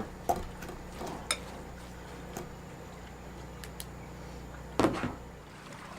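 Light clinks and taps of a mixing bowl and utensil as the salmon patty mix is handled, over a steady low hum. A brief louder sound comes about five seconds in.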